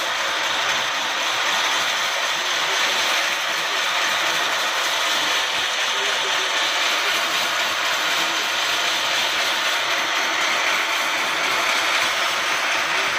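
Horizontal band sawmill driven by an electric motor, its band blade cutting lengthwise through a log: a steady, even whir and hiss of the blade in the wood over the running motor and band wheels.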